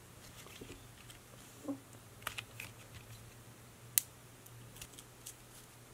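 Stiff Silly Putty being stretched and folded by hand: faint, scattered clicks and pops as the putty pulls and snaps apart, with one sharper click about four seconds in.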